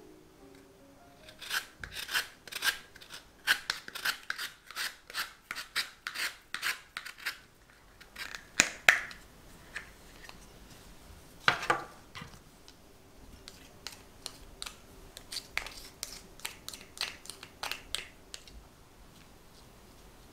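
Orange peel being rubbed across a small handheld grater to make zest: repeated rasping strokes, about two a second, pausing now and then and growing lighter near the end.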